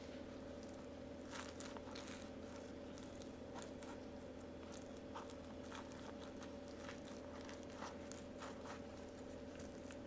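Faint crinkling and crackling of thin flatbread and rustling nitrile gloves as hands stuff and press a moist minced-meat filling into the bread pocket, in many small irregular clicks over a steady low hum.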